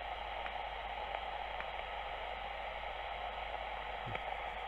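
Philco 53-956 tube radio hissing steadily with static from its speaker, a low hum underneath and a few faint ticks, with no station coming through.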